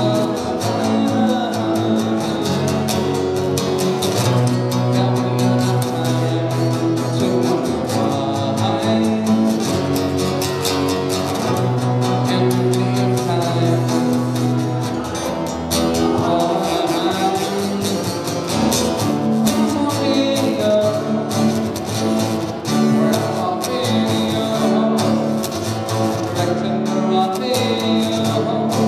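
Acoustic guitar strummed in a steady rhythm, with a man singing a song over it.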